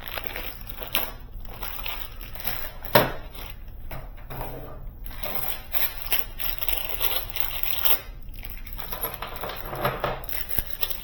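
Small metal mounting screws from a door closer kit clinking and rattling as they are tipped out of their packet and handled, with one sharp clink about three seconds in.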